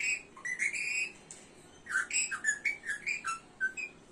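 Pet parrot whistling a run of short notes that hop up and down in pitch, a tune it has copied from a Redmi mobile phone's ringtone; a brief pause about a second in, then a quicker string of notes.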